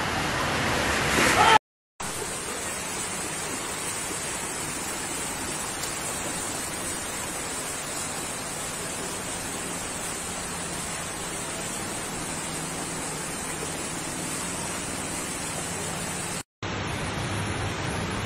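Steady rushing noise of fast-flowing floodwater, broken by two brief silences, about two seconds in and near the end.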